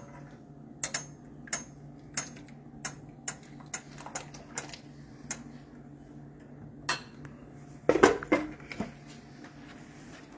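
Metal ladle clinking against the side of an enamel pot as thick dal is stirred, about two clinks a second for the first few seconds. About eight seconds in comes a louder cluster of clanks as the pot is handled on the stovetop.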